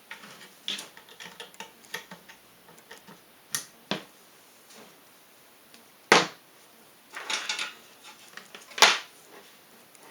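Scattered plastic clicks, taps and knocks of PC parts and cables being handled, as a SATA cable is connected to the motherboard, with two sharper knocks about six and nine seconds in.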